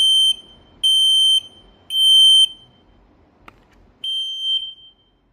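Fire Pro FP500V photoelectric smoke alarm sounding on its test button, a loud, high-pitched piezo beep. Three half-second beeps come in quick succession, then after a pause a fourth, quieter beep about four seconds in: the three-beep alarm pattern starting to repeat.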